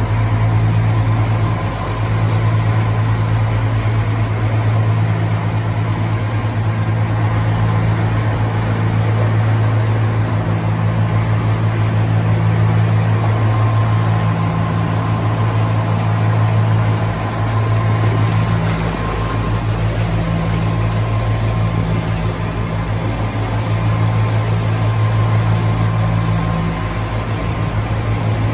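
Narrowboat's diesel engine running steadily at cruising speed inside a brick canal tunnel.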